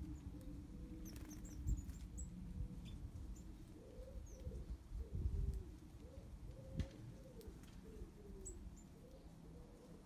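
Garden birds: pigeons cooing in repeated low, rising-and-falling phrases, with a few short high chirps from small birds. A few low thumps stand out, the loudest about five seconds in.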